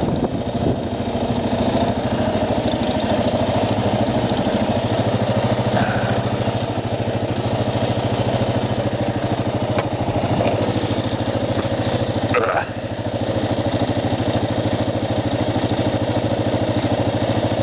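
Motorcycle engine idling steadily with an even, rapid pulse, briefly dipping once about twelve seconds in.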